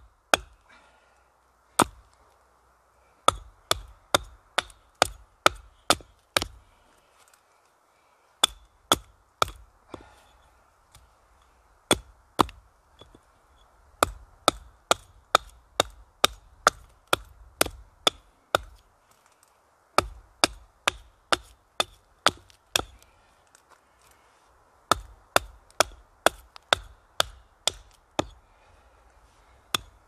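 Hatchet chopping into a thin standing sapling near its base: sharp wooden chops about two a second, in runs of several strokes separated by short pauses.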